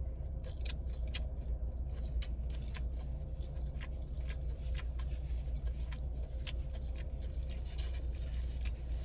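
Close-miked eating of a Jersey Mike's hot sub: chewing with irregular sharp, wet mouth clicks, over a steady low hum inside the parked car.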